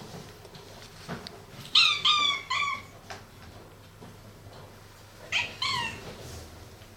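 Cat mewing in short, high calls with falling pitch: three quick mews about two seconds in, then two more a few seconds later.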